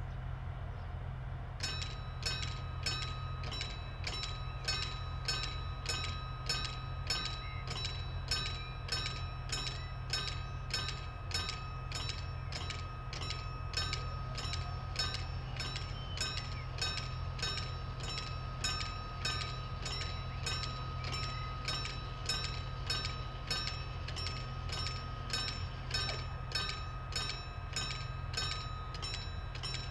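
Level-crossing warning bell starts ringing about two seconds in, a bright ding repeated about twice a second, signalling that the crossing is closing for a train. Underneath, a low steady hum from the ATR 220 diesel railcar idling at the platform.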